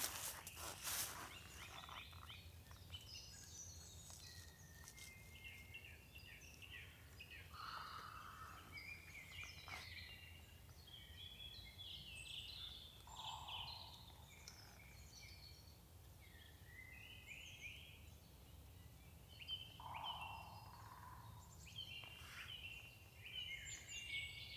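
Small woodland birds chirping and calling faintly in short scattered phrases, over a low steady background rumble and a few faint clicks.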